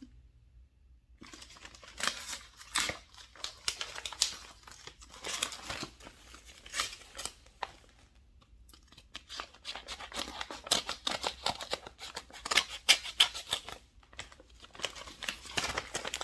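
A package being opened by hand and unpacked: many short, sharp handling sounds of paper and plastic packaging, starting about a second in and continuing in quick runs.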